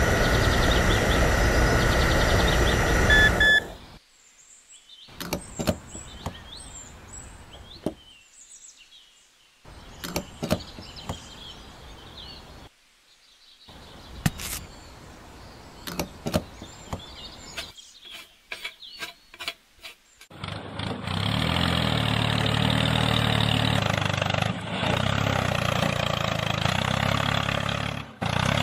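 A small motor runs steadily with a faint whine and stops about three and a half seconds in. Then come quiet small plastic clicks of hands handling the model, with faint high bird chirps. About twenty seconds in, a loud steady engine-like running starts up again.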